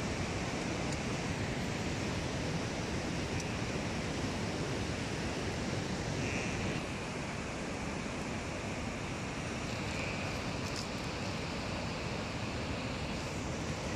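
A steady rushing outdoor noise with no distinct knocks or calls, dipping slightly in level about halfway through.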